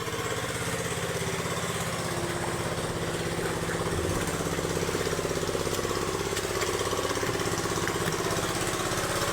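A small engine running steadily, with an even, rapid firing rhythm.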